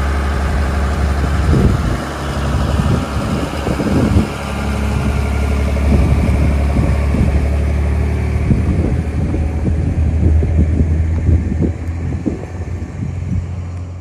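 Dodge Ram 3500 pickup's engine running with a steady low drone as the truck pulls away towing a loaded flatbed car trailer, with scattered knocks and rattles as the trailer rolls past.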